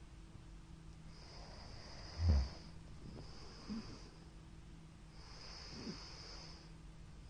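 A man snoring in his sleep: one loud, deep snore a little over two seconds in, then two softer snorts, with hissing breaths in a slow rhythm between them.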